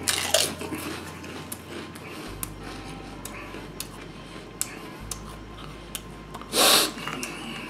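A wavy potato chip being crunched and chewed in the mouth, with irregular sharp crackles. A loud rush of breath comes near the end.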